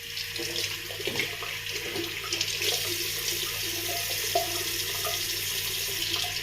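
Water tap running steadily into a sink, turned on suddenly at the start, with splashing under the stream.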